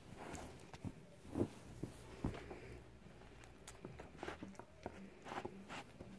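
Dog sniffing and nosing through a fleece snuffle mat for hidden treats: irregular quick sniffs and rustling of the fleece strips, with a few sharper clicks about a second and two seconds in.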